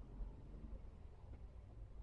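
Faint, steady low rumble of a Daihatsu Gran Max van's engine and tyres, heard from inside the cabin while it drives in slow traffic.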